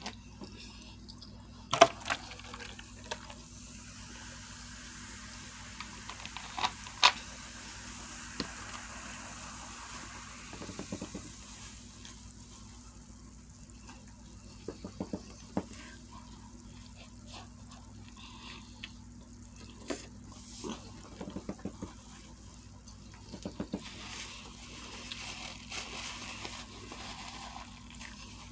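Close-up eating sounds from a person eating a sub sandwich: wet chewing and mouth sounds, with a few sharp clicks and short clusters of ticks, and some handling of the sandwich's paper wrapper.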